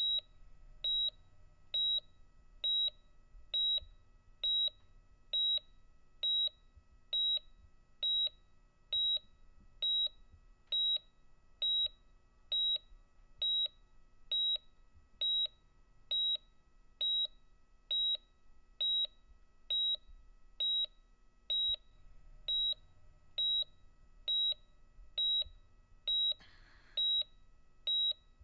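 Patient heart monitor beeping steadily, one short high beep per heartbeat at about seventy a minute, over a faint steady hum. A brief rustle sounds near the end.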